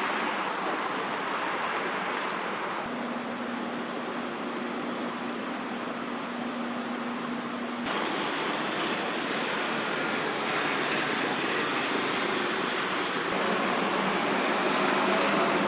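Steady city traffic noise, with faint, short bird chirps high above it. A low steady hum joins for a few seconds, and the noise changes abruptly about eight seconds in.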